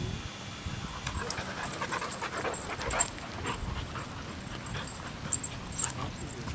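Dog panting, with short scuffs and taps.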